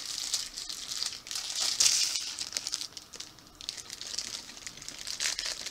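Plastic Twinkie wrappers crinkling in people's hands, an irregular crackle that comes and goes and is loudest about two seconds in.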